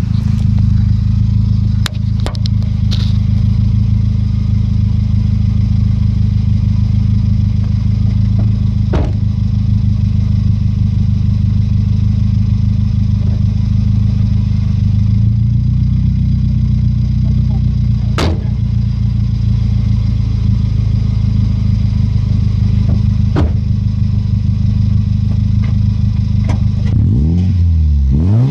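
Toyota Yaris engine and exhaust idling steadily, heard close up from under the rear of the car, with a few sharp knocks scattered through. Near the end the engine is revved, the pitch sweeping up and down.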